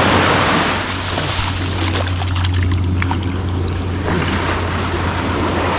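Water and wind noise at the water's edge, with a steady low drone underneath and a few faint clicks.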